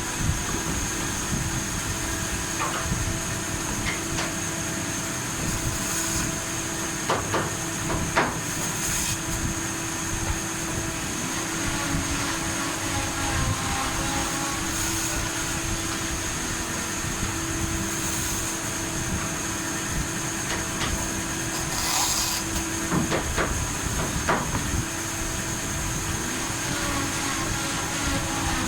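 Steady machine hum with a constant high whine, with a few sharp knocks scattered through.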